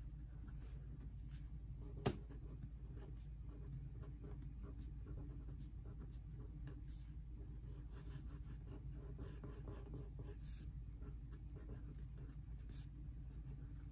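Crayola marker writing on paper: faint strokes and scratches of the felt tip, over a low steady hum. One sharp tap about two seconds in.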